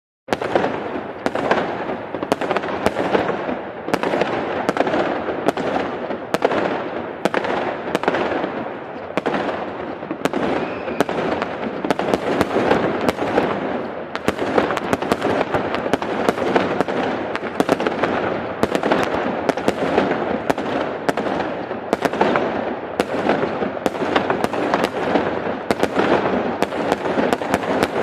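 Large fireworks display: shells bursting in a rapid series of sharp bangs, about one to two a second, each trailing off, over a continuous dense crackle.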